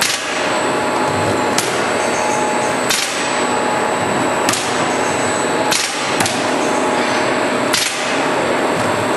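Industrial film-laminating machine running with a steady mechanical noise and faint hum, broken by a sharp snap roughly every one and a half seconds.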